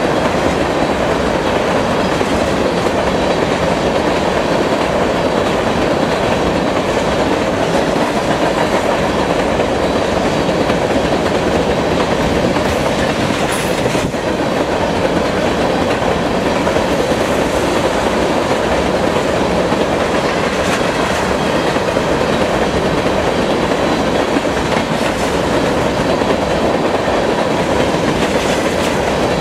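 Freight train of tank cars rolling past, steady clatter of steel wheels over the rail joints.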